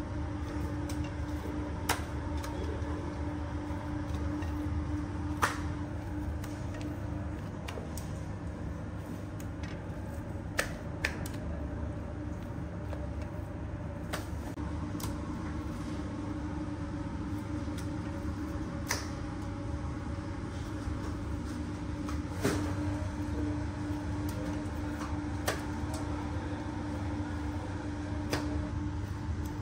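A steady machine hum over a low rumble, with scattered sharp clicks and knocks.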